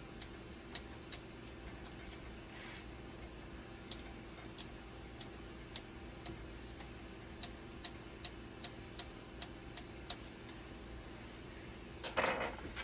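Small, sharp, irregular clicks, a few a second, from hand work on the metal and plastic parts of a dialysis machine's blood pump cabinet, over a steady low hum. A louder rustle comes near the end.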